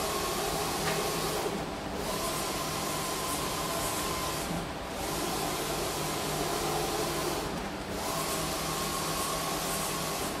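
Steady machine noise, a hiss with a low hum, that drops away briefly about every three seconds in a regular cycle.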